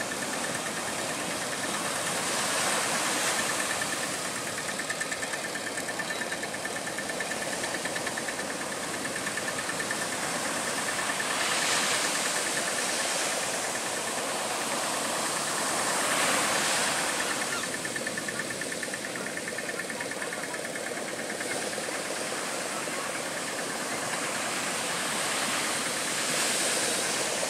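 Small boat's outboard motor running steadily under the hiss of surf, with waves breaking loudly over and around the boat several times.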